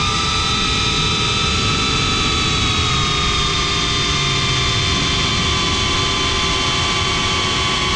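Motors and propellers of a GEPRC CineLog 35 cinewhoop FPV drone whining steadily in flight, heard from the onboard camera, with a rough low rumble underneath. The pitch dips slightly at the start and then holds steady.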